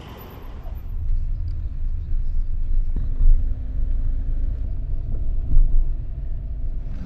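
Low, steady rumble of a car driving, engine and tyres on the road heard from inside the cabin, starting about a second in, with a couple of louder bumps.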